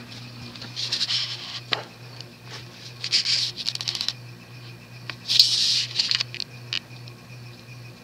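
Union Ngok Kee hugger ceiling fan's large cast-iron spinner motor running on medium speed with a steady, slightly pulsing hum. Scratchy rasps come about a second in, again around three seconds and loudest at about five and a half seconds, from something rubbing against the rotor inside the motor, which the owner puts down to an off-kilter rotor and rough bearings.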